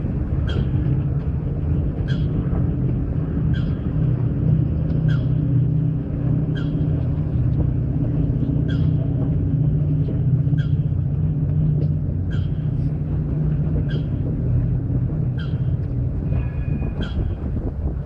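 Boat engine running with a steady low hum, with a bird's short, sharp calls repeating every second or two above it and a slightly longer call near the end.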